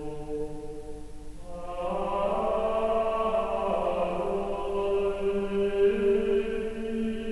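Background music of slow choral chant with long held notes, moving to a new, fuller chord about a second and a half in and changing again near the six-second mark.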